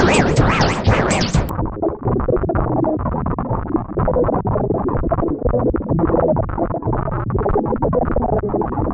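Loud electronic synthesizer music with quick, pulsing sweeps. About a second and a half in it cuts abruptly to a duller, muffled-sounding mix that carries on.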